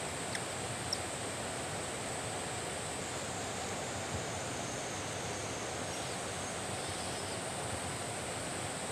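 Steady rush of a mountain river, with a few faint short ticks over it.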